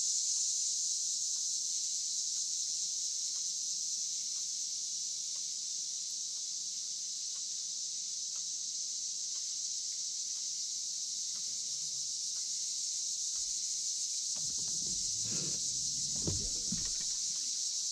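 Steady, high-pitched chorus of insects from the wooded shoreline. A brief low rumble comes in about three-quarters of the way through.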